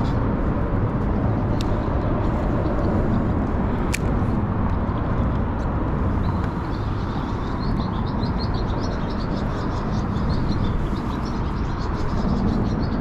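A steady low rumble, with a small bird chirping in quick repeated notes from about halfway through. A single sharp click about four seconds in.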